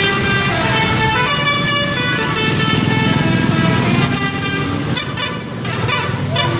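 Telolet horn of a Scorpion Holidays bus: a set of musical air horns playing a tune whose notes step up and down in pitch, turning choppier near the end.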